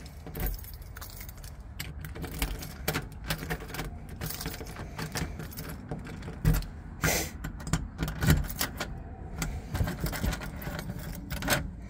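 Keys jangling on a ring, with a string of sharp metal clicks and rattles as a key is worked in an exterior door's deadbolt and knob lock.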